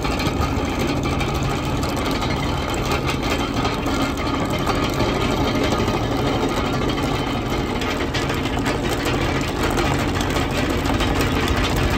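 Tractor engine running steadily while powering a trenching machine that is cutting a pipeline trench, with a dense mechanical clatter over the engine note.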